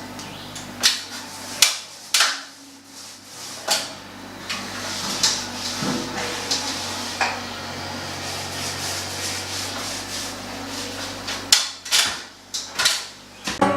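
Irregular sharp knocks and clatters of hard objects being handled and set down, about a dozen in all with a quick cluster near the end, over a low steady hum through most of it.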